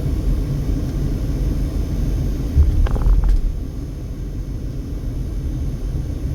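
Steady low rumble of a car being driven slowly, with a brief louder bump and a few short clicks about three seconds in.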